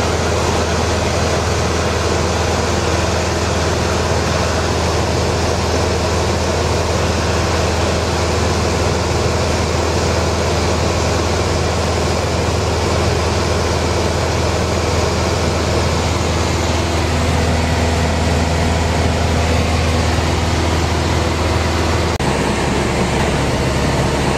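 Steady drone of a Cessna 172's engine and propeller heard inside the cockpit in cruise, a loud even noise over a strong low hum. The low hum shifts in pitch near the end.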